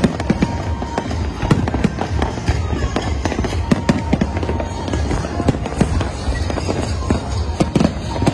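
Fireworks display: shells bursting in a dense, rapid run of bangs and crackles, with no pause.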